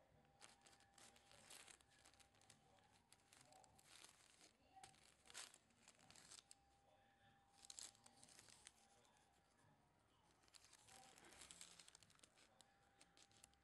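Faint rustling and crinkling of wrapping paper, in short irregular bouts, as a cotton bow tie is handled over it.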